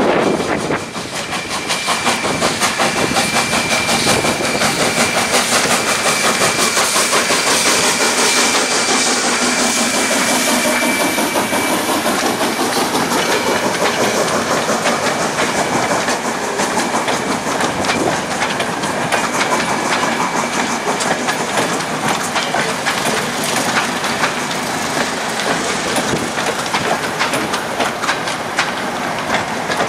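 Steam-hauled train passing close by: the steam locomotive Energie 507 goes by with a loud hiss of steam, then its coaches' wheels clatter steadily over the rail joints. A steady high-pitched tone sounds over the first twelve seconds or so.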